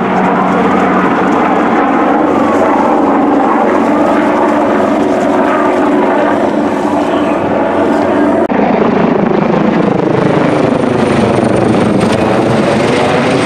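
Firefighting helicopter flying low overhead on a water drop, its rotor and turbine engine loud and steady, the pitch sweeping up and down as it passes over.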